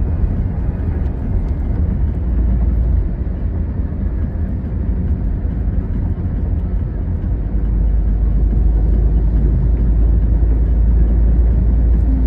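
Steady low rumble of a vehicle in motion, heard from inside: road and wind noise with the engine underneath, growing a little louder about halfway through.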